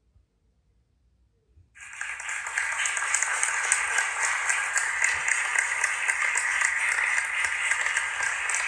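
Near silence, then about two seconds in a large crowd starts applauding, a dense steady clapping that keeps going.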